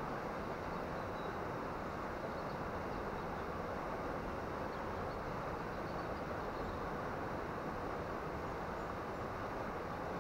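Steady rush of water pouring through an old river weir, an even, unbroken noise.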